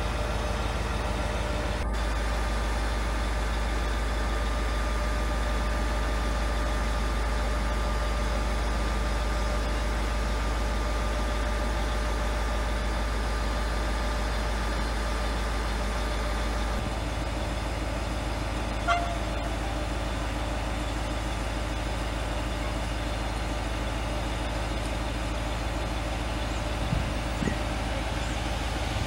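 Diesel railcars running in a station: a steady low engine hum with a few steady tones over it, and one brief horn toot about 19 seconds in.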